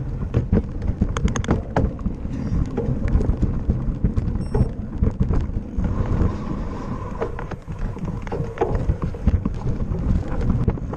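Wind buffeting the microphone of an action camera riding on a mountain bike, a constant low rumble, with many short clicks and knocks as the bike rattles over a rough dirt trail.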